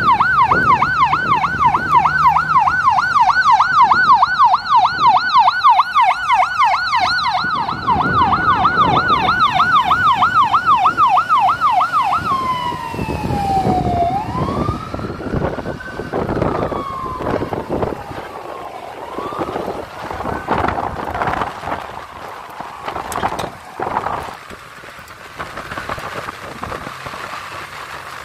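Ambulance siren on a fire department medic unit running a fast yelp, about three rises and falls a second, for about twelve seconds, then switching to a slower rising-and-falling wail. It fades as the ambulance drives away.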